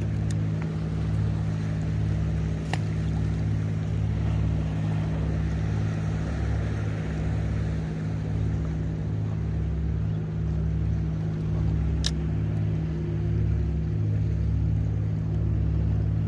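A boat motor running as a steady low drone, with two sharp clicks, one a few seconds in and one past the middle.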